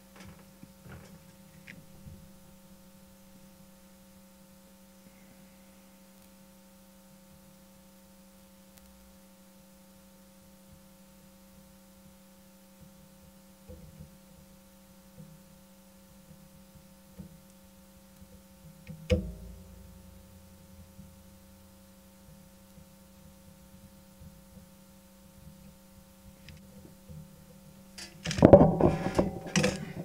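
Steady low electrical mains hum at the workbench, with a single sharp click about two-thirds of the way through and a loud burst of clattering and knocking near the end.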